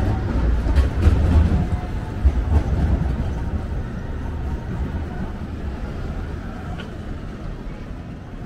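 Low rumble of a heavy vehicle going past on the street and dying away, with a few knocks in the first seconds.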